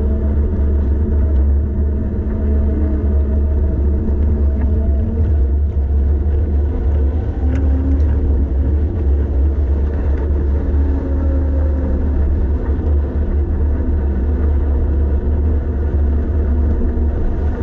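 Wind buffeting the camera microphone as a bicycle rides at speed, a steady heavy low rumble with no break.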